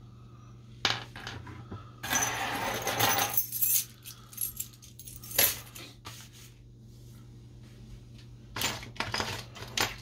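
Small parts and tools being handled and set down on a wooden workbench: sharp clicks and clinks about a second in and again about halfway, with longer stretches of clattering rustle around two to four seconds and near the end, over a steady low hum.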